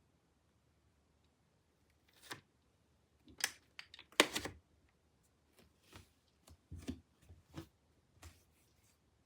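A string of short rustles and clicks, as of objects being handled at close range, starting about two seconds in, with the loudest pair near the middle.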